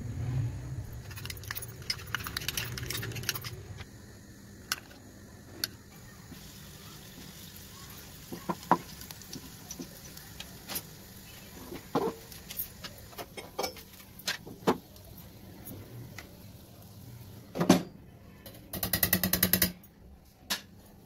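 Chicken fillets frying in a nonstick pan: a faint steady sizzle with scattered sharp taps and scrapes of a utensil against the pan. Near the end comes a rapid run of clicks lasting about a second.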